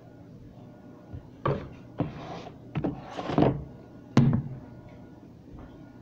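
A handful of knocks and clunks of food containers and items being taken out of a refrigerator and set down, the loudest a sharp knock about four seconds in.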